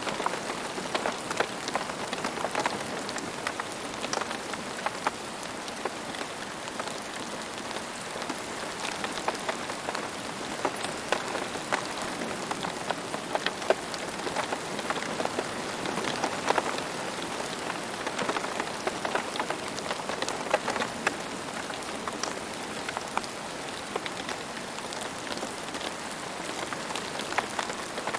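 Steady rain falling on a hard surface, with many separate drops ticking through the constant patter.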